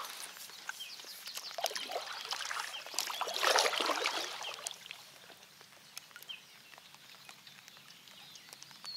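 Kayak paddle splashing through river water, loudest about three and a half seconds in, among scattered water drips and small bird chirps.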